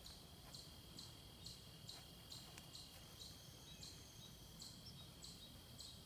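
Near silence with faint insects: a high chirp repeating about twice a second over a steady, high-pitched trill.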